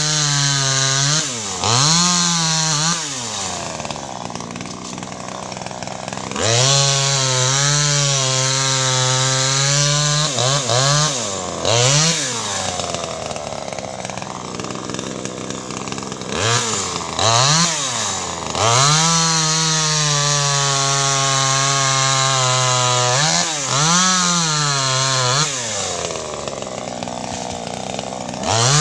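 Small 25cc top-handle chainsaw cutting mango branches, repeatedly revving up to full throttle and dropping back to idle between cuts. The longer cuts hold high for three to four seconds, with the pitch wavering as the chain works through the wood.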